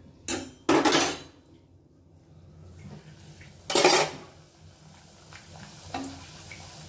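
Metal kitchen utensils clattering and scraping against a cooking pan in a few short bursts: the longest about a second in, another near four seconds, and a faint one near the end.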